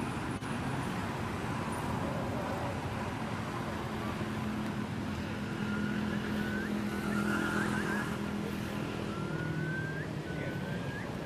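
Roadside traffic noise, with a passing motorbike engine droning steadily for several seconds in the middle. Short rising high-pitched chirps come in over the second half.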